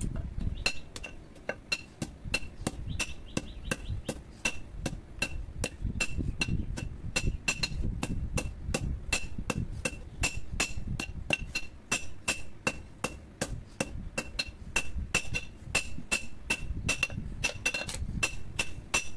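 Hand hammer striking a red-hot curved steel blade on a steel anvil: steady blows about three a second, each with a bright metallic ring. The blade is being forged from an old power-tiller blade.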